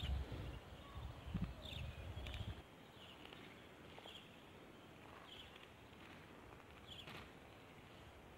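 A donkey grazing: low, muffled rustling and thumps as it crops grass during the first couple of seconds, then quieter. Small birds chirp in short repeated notes throughout.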